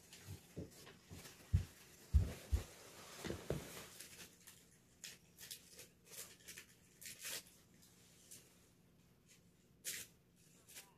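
A few soft, low thuds in the first seconds, then faint, irregular crinkling rustles of a blood-pressure pill packet being opened.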